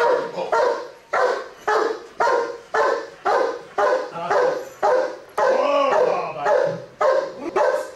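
Giant schnauzer police dog barking repeatedly in a regular rhythm, about two barks a second.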